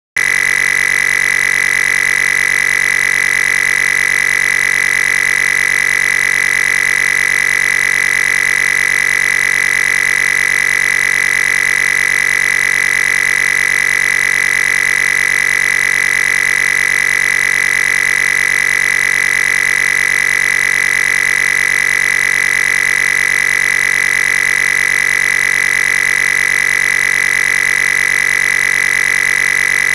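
Loud, steady electronic buzz with a strong high tone, cutting in suddenly from dead silence and holding unchanged.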